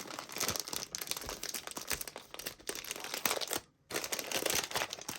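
Wrapping paper crinkling and rustling as a gift is unwrapped by hand, in quick irregular crackles, with a brief pause about three and a half seconds in.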